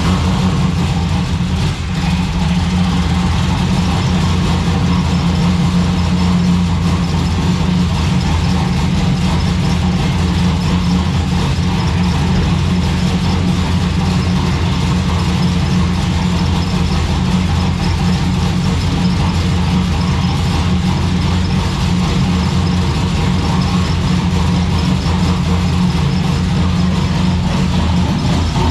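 Turbocharged Holden Commodore Ecotec V6 idling steadily just after starting. It runs with a rattle from a loose part in the exhaust, which the owner traces to the Y-pipe or the rear section.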